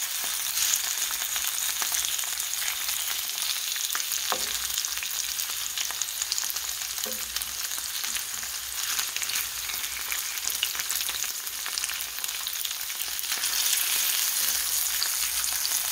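Pork tocino frying in oil in a cast-iron skillet: a steady, crackling sizzle. A spatula now and then moves the pieces, and the sizzle grows a little louder near the end.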